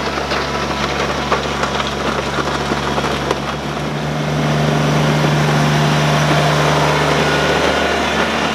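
Kubota BX2380 compact tractor's three-cylinder diesel engine running steadily under load as it drags a box blade over a gravel driveway, with gravel crunching. The engine grows louder in the second half as the tractor passes close by.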